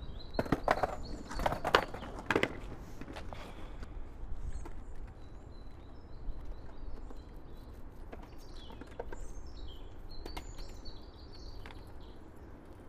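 Outdoor ambience with a steady low background rumble. A few sharp knocks and scuffs come in the first couple of seconds, then many faint, short bird chirps.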